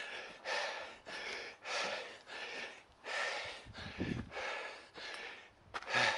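A man breathing hard and fast, winded from climbing a long, steep stairway, with a loud breath about every two-thirds of a second.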